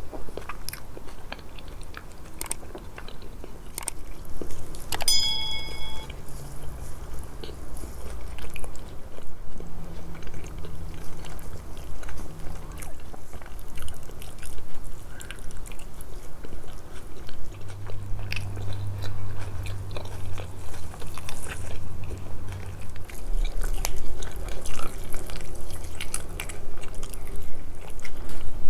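Close-miked chewing and biting of stuffed grape leaves, lamb tongue and meat, with wet mouth clicks and smacks throughout. A short ringing clink sounds about five seconds in.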